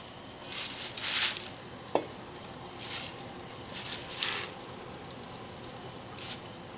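Chopped kale leaves dropped into a pot of boiling water: several short bursts of hissing and bubbling in the first four seconds, with one sharp click about two seconds in.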